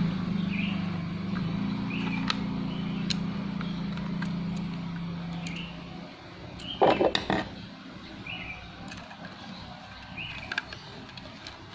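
Small clicks and a sharp clatter of knocks about seven seconds in, from hard plastic and metal laptop parts being handled while a 2.5-inch SSD is fitted. Under this, a low steady hum fades out about halfway through, and short high chirps repeat every second or two.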